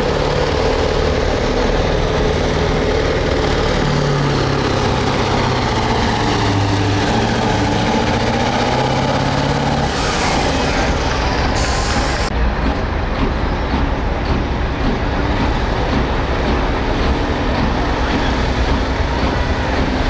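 A pulling truck's engine running hard under load as it drags the sled, its low pitch shifting in steps. A loud hiss cuts in about ten seconds in and stops about two seconds later.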